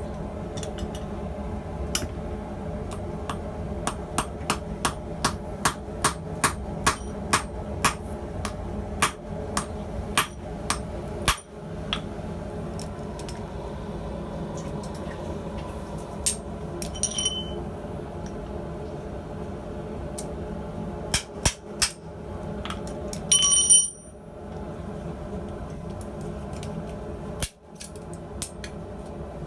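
Hand hammer striking hot 8 mm rivet stock held in a rivet header to upset the rivet head: a run of sharp blows about two a second for several seconds, then a few scattered strikes, two of which leave the steel ringing. A steady hum runs underneath.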